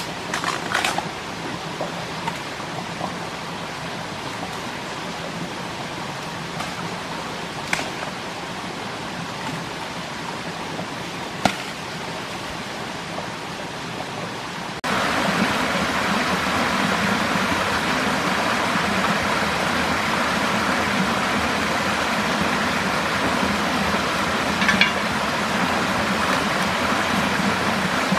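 Stream water running steadily, with a few isolated sharp snaps. About halfway through it switches abruptly to the louder, fuller rush of a small cascade.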